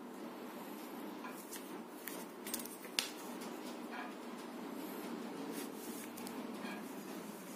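Pencil scratching short strokes on paper along a steel ruler, with two sharp ticks about three seconds in, the second the loudest, over steady low background noise.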